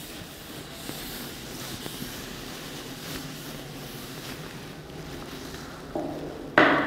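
Board duster being rubbed over a chalkboard to wipe it clean: a soft, steady rubbing hiss. A sudden, much louder sound cuts in just at the end.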